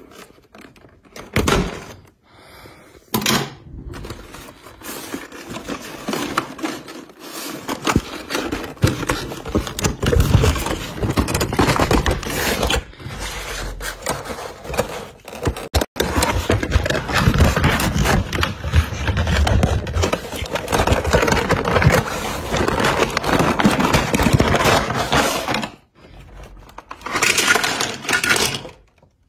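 Toy packaging being handled and opened: a cardboard box and a clear plastic bag of toy train parts, with continuous crackling, crinkling and scraping. There are a few separate knocks near the start and a short pause before a last burst near the end.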